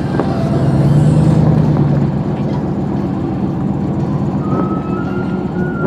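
Pickup truck engine running steadily at low speed, with a faint high whine coming in near the end.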